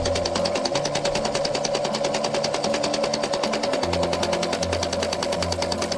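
Huina RC model excavator's rock-breaker hammer chattering against a stone: a rapid, even clatter of blows, many a second, with a steady hum under it.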